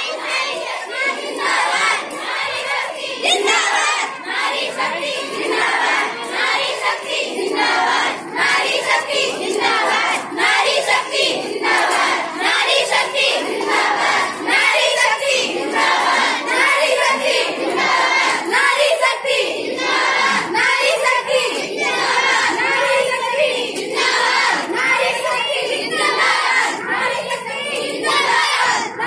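A large group of schoolgirls chanting rally slogans together as they march, the chant going in short repeated phrases every second or two.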